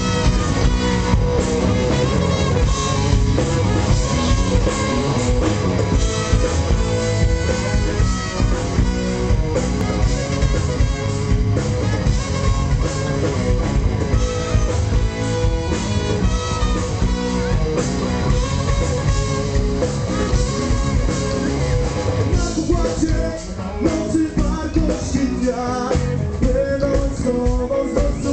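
Loud live rock music played through a PA system, with guitar, drums and a singer, heard from among the audience at an open-air concert.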